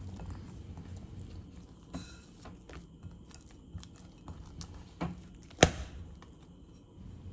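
Oiled pizza dough being turned and rubbed by hand in a plastic bowl: faint wet squishing and small scattered clicks, with one sharp slap or click about five and a half seconds in.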